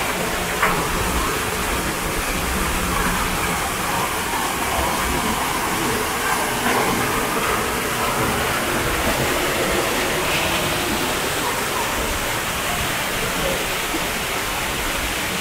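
Steady rushing background noise with faint voices of people, and one short click about half a second in.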